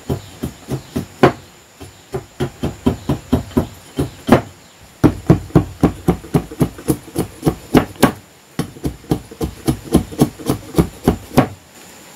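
Machete-style knife chopping down into a stick of wood on a wooden block, splitting it into kindling: quick, even strokes about three a second, with a few harder blows, stopping near the end.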